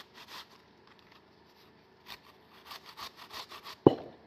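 Peeled yellow apple being grated on a metal hand grater into a stainless steel bowl: a run of quick, evenly repeated grating strokes that pauses for about a second and a half near the start. A single loud knock sounds near the end.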